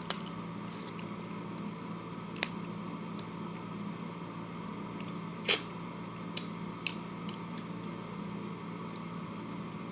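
Eating and handling buttered prawns by hand: a few sparse small clicks and crackles, the loudest about five and a half seconds in, over a steady low room hum.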